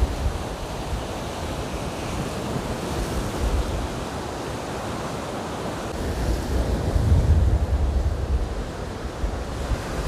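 Stormy Black Sea surf rushing and breaking on the shore, with wind buffeting the microphone; the gusts grow stronger from a little past the middle.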